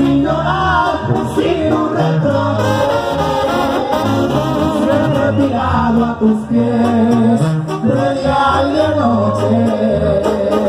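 Live Mexican banda music: a male singer's voice over a brass band of trombones and sousaphone, with a steady low bass line.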